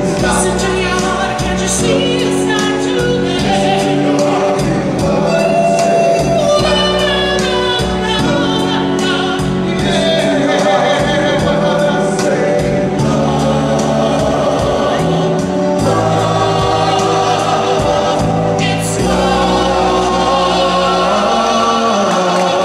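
Vocal group singing a classic soul song in harmony with live band backing. Voices hold long notes with vibrato over a steady bass line, and the bass drops out shortly before the end.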